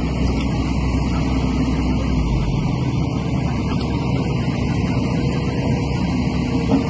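Komatsu excavator's diesel engine running steadily under work. Its deepest rumble falls away about two and a half seconds in.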